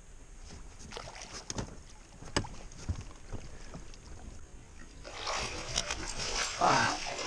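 Water splashing as a hooked fish thrashes at the surface beside an inflatable boat and is scooped into a landing net, louder in the last couple of seconds. A few sharp knocks come earlier, and a brief louder sound comes near the end as the net lifts the fish out.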